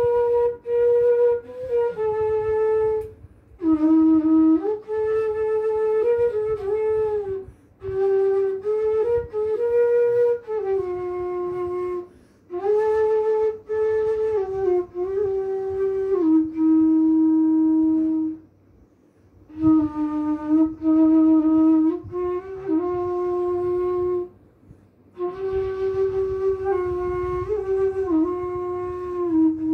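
Solo bansuri (bamboo side-blown flute) playing a slow melody of held notes with small slides and ornaments, in phrases separated by short breath pauses.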